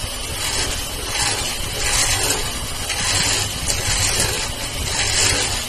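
Electric hand mixer running steadily, its twin beaters whisking softened butter in a steel bowl to make it smooth.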